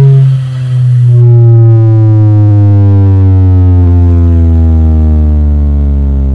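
Very loud deep bass tone from a truck-mounted 'sound horeg' speaker system during a sound check: a single low note gliding slowly and steadily downward in pitch.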